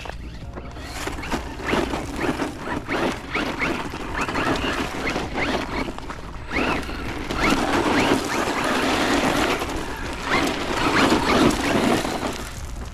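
Hosim X08 brushless 4x4 RC truck driving at high throttle: the brushless motor whines, rising and falling in pitch with the throttle, over the noise of the tyres scrabbling on the ground. It is loudest in the second half.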